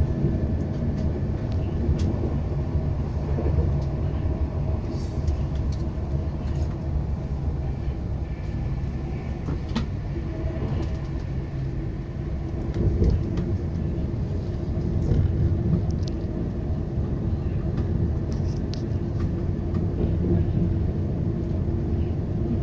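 Passenger train running at speed, heard from inside the carriage: a steady low rumble of wheels on rail, with a few faint clicks now and then.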